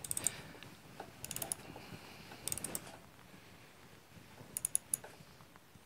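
Ratchet wrench clicking in four short, quick bursts while a fastener is tightened. The clicks are faint.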